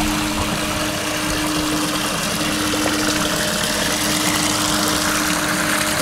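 Water pouring and splashing steadily from a row of PVC water cannons and a small waterfall into a garden pond, with a steady low hum underneath.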